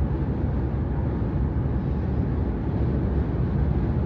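Steady, low road and wind noise inside the cabin of a Jeep Grand Cherokee WK2 cruising at highway speed. There is no cowl hum: the plastic cowl, now held down with tape or rubber pads, no longer vibrates in the wind.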